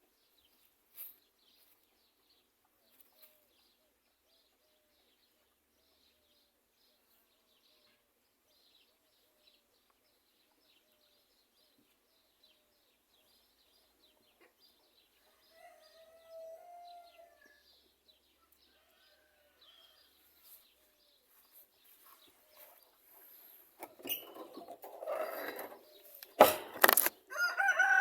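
Chickens: faint clucks now and then, then near the end a loud flurry of flapping wings and a rooster starting to crow.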